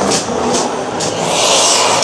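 Black iron oxide (Fe3O4) thermite in a clay flower pot igniting: crackling and fizzing, then a loud rushing hiss that builds about a second in as the reaction takes off, over a steady low rumble.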